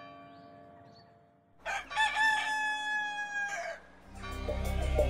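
The last of a church bell's ring dies away, then a rooster crows once, about two seconds long. Music fades in near the end.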